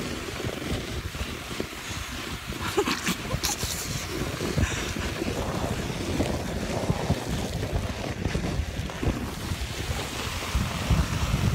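Wind buffeting a phone's microphone on a fast sled ride down a snowy track, over the rush of the sled running on the snow. There are a few brief scratchy bursts about three seconds in.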